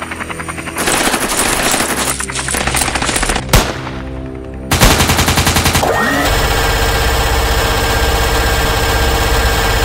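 Sound-effect automatic gunfire: rapid machine-gun fire starting about a second in, one loud sharp crack about three and a half seconds in, then heavier sustained fire breaking in suddenly near five seconds in with a low rumble under it.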